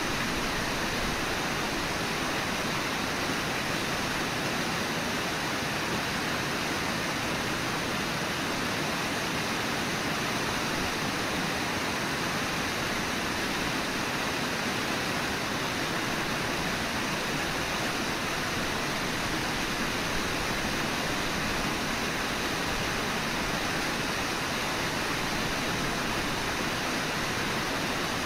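Steady, even rush of flowing river water from the Brooks River, with no single sound standing out.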